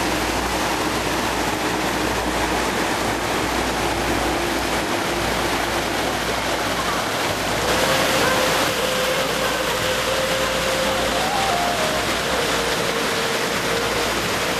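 Steady rushing of a mountain stream cascading over rocks, louder for a moment about eight seconds in.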